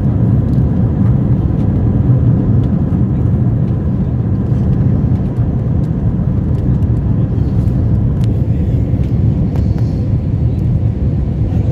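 Steady low roar of an Airbus A321's engines and airflow heard inside the passenger cabin as the jet descends on approach to land, with a few faint light ticks over the top.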